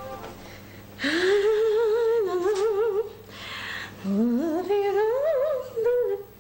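A woman humming a wordless tune in two long phrases, one about a second in and one about four seconds in. Each phrase slides up at its start, then wavers quickly up and down in pitch.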